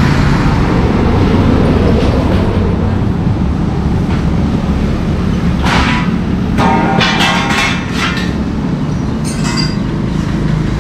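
Steady low engine rumble of road traffic. About six seconds in, a short run of sharp knocks and clatter that lasts about three seconds.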